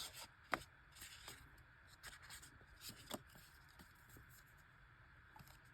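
Faint rustling and a few small clicks of a fold-out paper CD lyrics booklet being handled.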